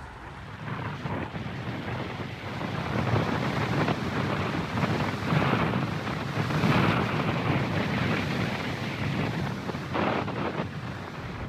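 Wind buffeting the microphone: a rough, gusting rumble that swells and eases several times.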